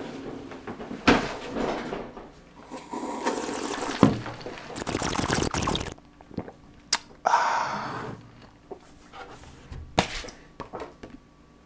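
Unboxing packaging being handled: uneven bursts of rustling and crinkling, with a few sharp clicks and knocks in the second half.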